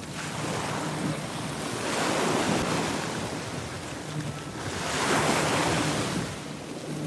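Atlantic Ocean surf: waves breaking and washing up the beach in two swells of rushing noise about three seconds apart, with wind buffeting the microphone.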